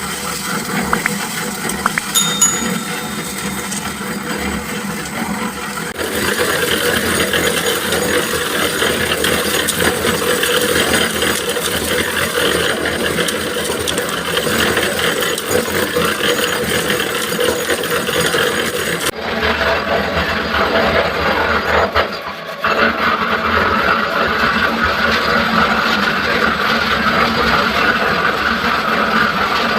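Concrete mixer running, its drum turning and churning a batch of concrete with a steady mechanical clatter. The sound changes abruptly about six seconds in and again near nineteen seconds, as between separate recordings.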